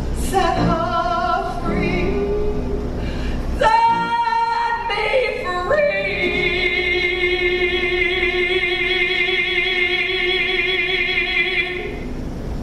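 A woman singing solo in full voice: a few short phrases, then one long note held with vibrato from about six seconds in, ending shortly before the close.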